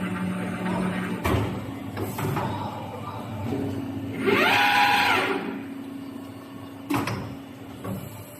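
75 CNC pipe bending machine working: a steady hum with two sharp clunks, and about four seconds in a loud motor whine that rises and then falls over about a second.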